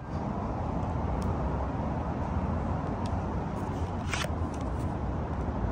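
Steady city street noise, a low rumble like distant traffic, with a few faint clicks scattered through.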